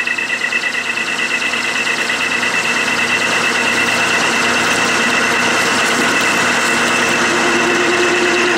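Clausing lathe running while a parting (cutoff) tool is hand-fed into spinning 7/8-inch aluminum bar stock. It makes a steady, loud two-note high whine over the hiss of the cut, and a lower tone joins near the end.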